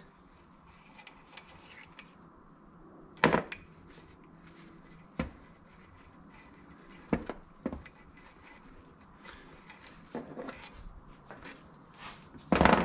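Scattered metal clinks and knocks of hand tools on the bolts and cast body of a two-stage vacuum pump being taken apart, about half a dozen separate strikes, the loudest near the end.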